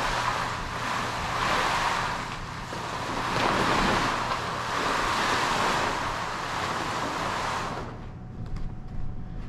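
Stiff Dacron sailcloth of a new mainsail rustling and swishing as it is handled and unrolled, in swelling waves of noise that stop abruptly near the end.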